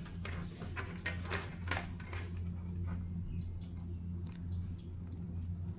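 Light scattered clicks and rustles of small plastic wire connectors and a multi-wire cable being handled and pushed together by hand, over a steady low hum.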